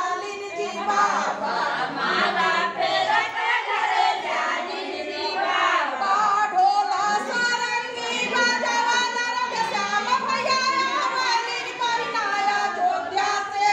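A group of women singing a traditional gaali, the teasing folk song sung by women at weddings, several voices together without a break.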